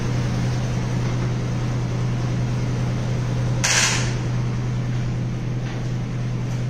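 Steady low machine hum with an even hiss, like a running fan or appliance, with one short scratchy burst a little past halfway through.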